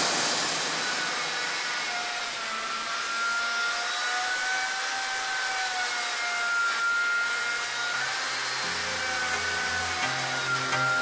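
DIY CNC router's spindle milling aluminium with a 6 mm three-flute cutter: a steady hiss with a whine that wavers slightly in pitch as the cut goes on. Music with a bass line comes in near the end.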